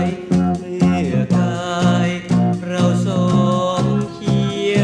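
A 1970s Thai pop band recording played from a vinyl record: a full band arrangement with a moving bass line and a regular beat.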